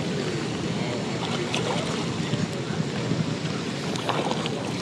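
Steady rain and wind noise buffeting the microphone, with a few scattered light ticks.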